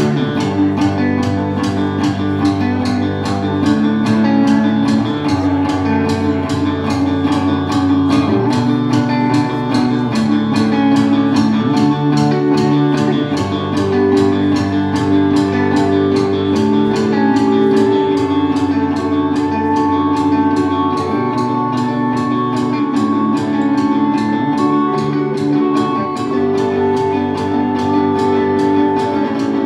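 Rock band playing live, an instrumental passage with no singing: electric guitars and bass guitar over a drum kit keeping a steady, even beat.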